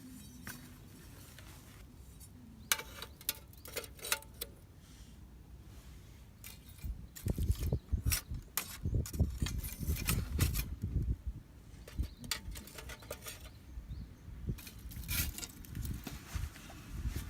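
Light metallic clinks and rattles, a few of them ringing briefly. From about seven seconds in, irregular low rumbling buffets join them, with more clinks near the end.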